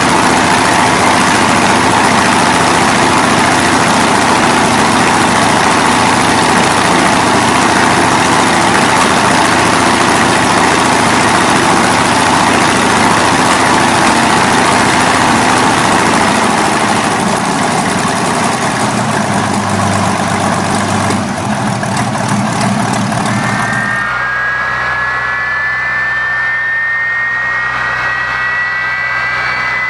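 Air-cooled multi-cylinder piston aircraft engine running loud on a test stand, its note easing lower about two-thirds of the way through. Near the end it gives way abruptly to a Boeing 767-300 turbofan starting up, a whine rising slowly in pitch.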